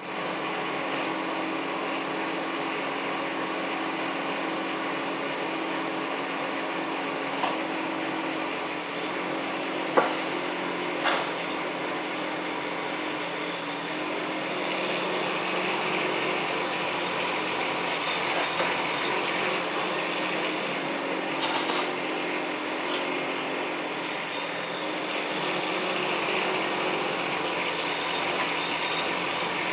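Bobcat E10 mini excavator running steadily while it digs sand, its hydraulics working the arm and bucket. A few sharp knocks come about a third of the way through.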